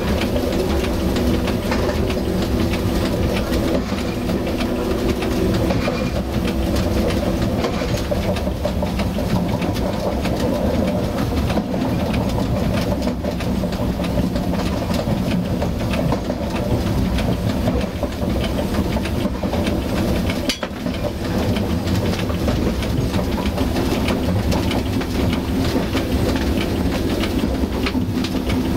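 AMX Caravelle X4500 diesel railcar under way, heard from inside its driver's cab: a steady engine drone with wheels running on the rails and faint rail clicks. The noise dips briefly about two-thirds of the way through.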